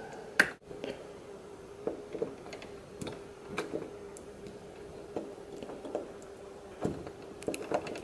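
Scattered small clicks and taps of a 3D-printed plastic lock pick and tension tool working in a door lock's keyway, the sharpest about half a second in and a quick cluster near the end, over a faint steady hum.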